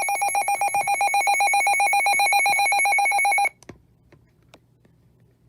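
Weather radio alert alarm: a shrill electronic tone pulsing very rapidly, cutting off suddenly about three and a half seconds in. It signals that a new alert, here a severe thunderstorm warning, has come in.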